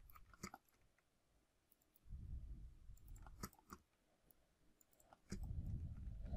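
Faint, scattered clicks of computer input. Two low, muffled rumbles, each about a second and a half long, start around two and five seconds in.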